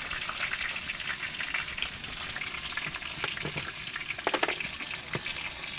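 Pike frying in a pan: a steady sizzle, with a few light clicks of food being handled about four seconds in.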